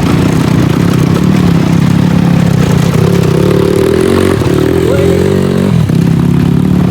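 Dirt bike engine running under load while riding; the revs climb about three seconds in, hold higher, then fall off sharply near the six-second mark before settling back.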